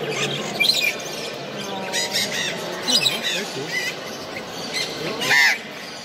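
Caged parrots and parakeets calling: a busy mix of short squawks and chirps, with one loud, harsh squawk about five seconds in.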